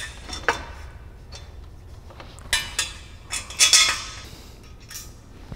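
Light metallic clinks and knocks of aluminium extrusions and a steel bolt and washer being handled as the bolt holes are lined up, with a louder ringing clatter of metal about three and a half seconds in.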